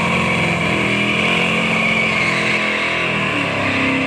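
Drag car doing a burnout: the engine is held at steady high revs while the rear tyres spin and squeal on the pavement.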